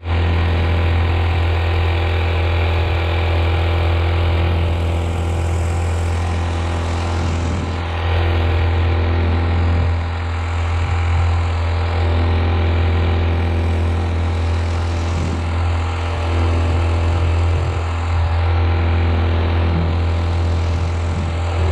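Motor of a fishing kayak running at a steady speed, pushing the boat across calm water.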